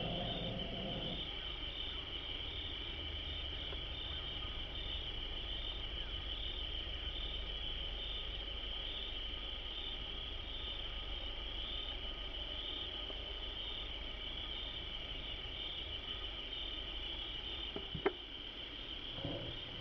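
Steady chorus of late-summer insects such as crickets or katydids, a high, evenly pulsing trill, with one sharp click near the end.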